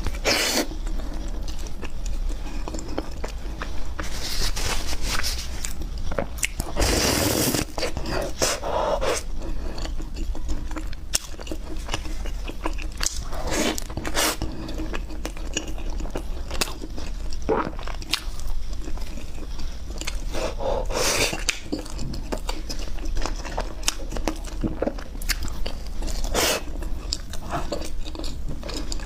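Close-miked eating of chocolate ice cream bread: a person biting and chewing, with a string of short sudden sounds and several louder bites spread through.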